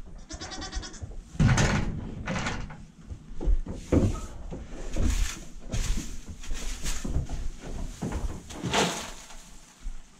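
A goat gives a quavering bleat at the start. Then a plastic rake makes several scraping, rustling strokes through straw bedding.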